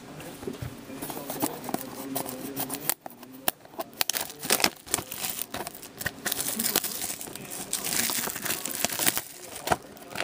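Packaging on a 2011-12 Panini Titanium hockey card box crinkling and tearing as it is opened by hand, with sharp crackles throughout and a denser run of crinkling in the second half.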